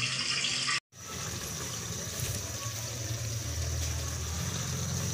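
Steady hiss of lit gas stove burners under cooking pots. The sound breaks off for a moment about a second in.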